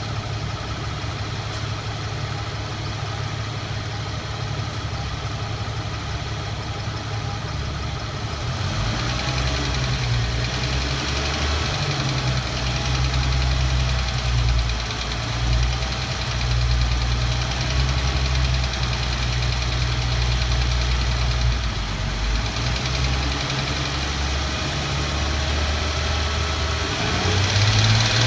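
Infiniti Q50 engine running with a metallic tapping or clanking rattle, steady at first, then louder from about eight seconds in, with several rises and dips. The rattle follows engine rpm, not road speed, and the owner does not know its cause.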